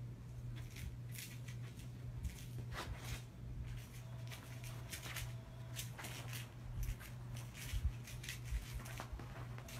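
A Norwegian Forest Cat kitten scrabbling and pouncing on a bedspread while batting a toy mouse: short, scattered scratchy rustles of paws and claws on fabric, with a few soft thumps about eight seconds in, over a steady low hum.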